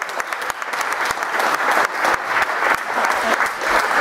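Small audience applauding, many hands clapping together and growing a little louder toward the end.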